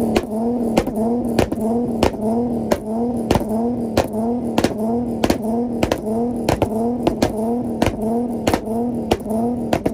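Modified car engine revved up and held against its two-step rev limiter, the pitch wavering about one and a half times a second, with many sharp exhaust pops and bangs.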